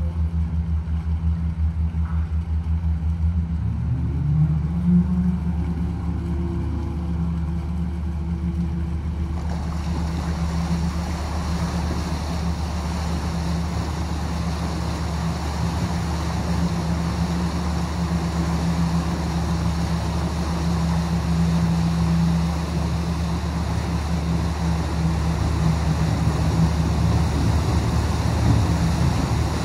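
Large vehicle engine running with a low, even throb. About four seconds in its pitch rises and then holds higher, and a steady rushing noise joins near ten seconds in.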